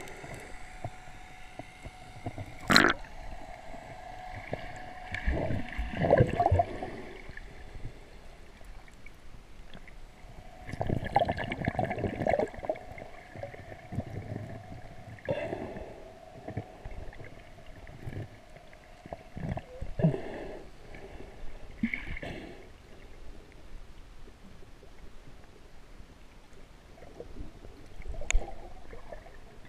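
Muffled underwater sound heard through a camera's waterproof housing: water gurgling and sloshing in irregular surges, over a faint steady whine of a few tones, with a sharp click about three seconds in.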